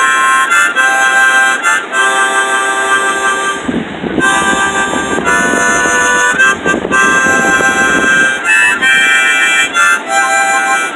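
Harmonica played in short chorded phrases, the notes changing every fraction of a second with brief breaks between them, over the steady rush of river rapids.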